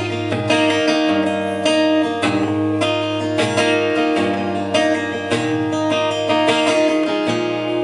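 Solo steel-string acoustic guitar playing chords with strummed and picked notes in an instrumental passage, with no singing.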